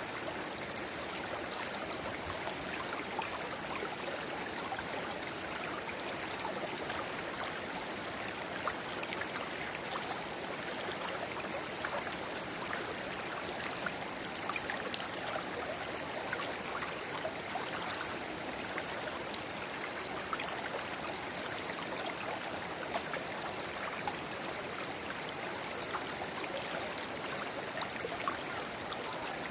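River babbling steadily where a small spring-fed rivulet pours into the main stream, with many small trickling ticks over the even rush of water.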